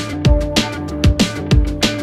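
Background music: an electronic track with a steady beat of deep kick drum hits and sustained synth notes.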